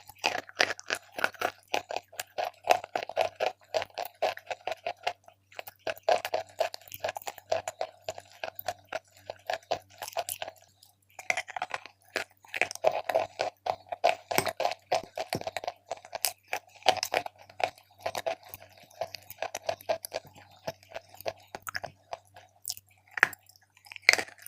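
A person biting and chewing Big Love eating chalk, rapid crunching in runs broken by short pauses, with a couple of sharper bites near the end.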